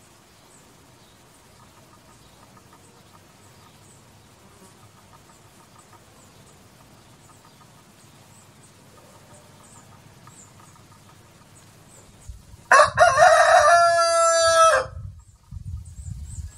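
A rooster crows once, loud and about two seconds long, near the end. It comes after a long stretch of faint background with soft high ticks, and low rumbling follows it.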